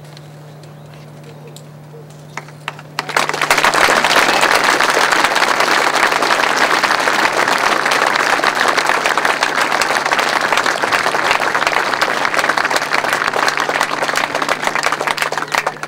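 Audience applauding. A few scattered claps come about two and a half seconds in, then dense, steady applause follows for about twelve seconds and stops abruptly just before the end.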